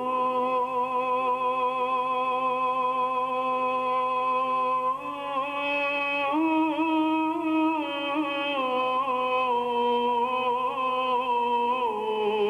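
A male singer of Punjabi Sufi kalam holds one long, unbroken sung note into a microphone. The pitch steps up twice midway, then falls back down in steps, with a slight waver.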